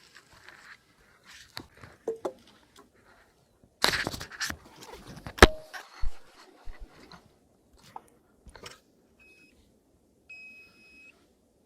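Fishing gear being set down and handled: scattered knocks and rattles, with a burst of clatter and one sharp click about halfway. Near the end, an electronic device gives two short, high beeps, the second longer.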